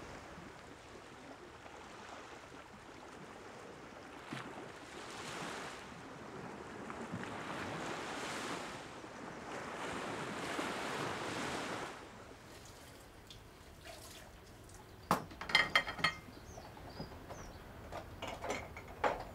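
Sea waves breaking on the shore in slow, rolling swells about every three seconds. After a drop in level, crockery clinks a few times at a kitchen sink.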